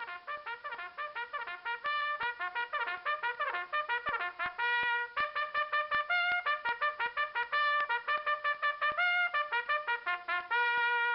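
A fast melody of short, clipped trumpet-like notes, leaping up and down in pitch, that settles on one long held note near the end.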